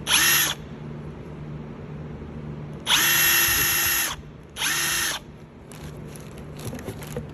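Snap-on CT9010 18 V brushless 3/8-inch cordless impact wrench run free with no load, its motor whining up in three trigger pulls: a brief one, one of about a second, then another brief one. A few faint clicks follow near the end.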